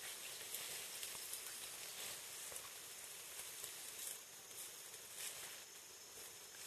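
Faint rustling and crackling of leaves and branches in dense forest vegetation over a steady high hiss, with a few sharper rustles in the second half.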